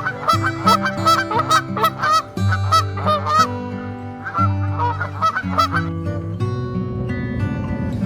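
A flock of waterfowl calling in quick, overlapping honks for about six seconds, then falling silent. Background music with sustained low chords plays underneath.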